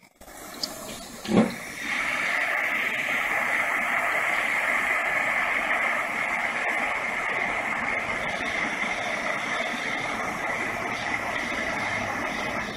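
A soldering torch starts with a click and a low thump, then burns with a steady hiss from about two seconds in, heating copper pipe joints to sweat in solder.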